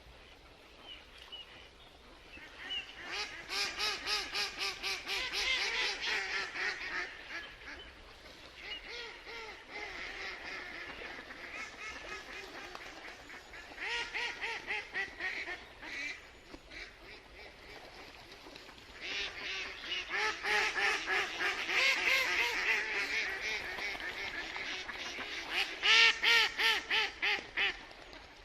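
Mallard ducks quacking in quick runs of many short calls, several bouts with brief lulls between, the loudest run near the end.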